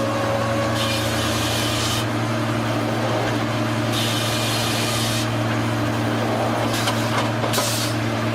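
Sawmill machinery running with a steady hum, with passes of wood being cut that come as hissing bursts of about a second, three times.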